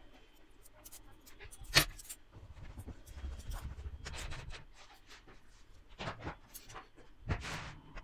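Small metal construction-kit parts (perforated strips, nuts and bolts) clinking and scraping as they are handled: a sharp clink about two seconds in is the loudest, with rustling and scraping in the middle and a few more clicks near the end.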